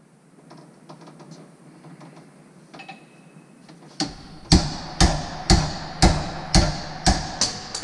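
Hammer blows on an adjustable face spanner wrench set in the gland of a hydraulic cylinder clamped in a vise, driving it to break the seized gland loose. There is faint clicking and handling at first, then about halfway through a run of about nine sharp metal blows, roughly two a second, each ringing briefly.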